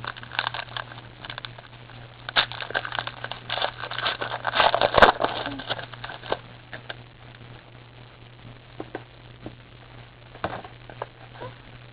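Trading-card pack wrapper crinkling and crackling as it is torn open, dense for the first six seconds or so, then only scattered faint rustles and clicks as the cards are handled. A steady low hum runs underneath.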